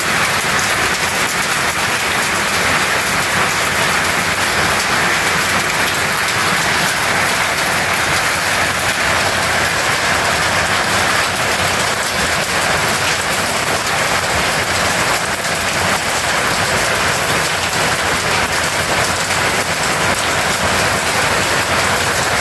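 Heavy rain mixed with small hail coming down hard on a concrete patio: a dense, steady hiss of countless impacts.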